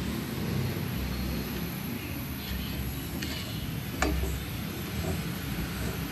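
Wooden spatula stirring thick pudding mix in a stainless steel pot, with faint scraping and a single sharp knock about four seconds in, over a steady low rumble.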